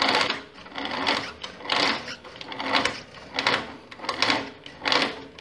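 Roller chains and sprockets of a go-kart chain-reduction drivetrain turned slowly by hand, giving a series of short metallic rattles, roughly one every three quarters of a second.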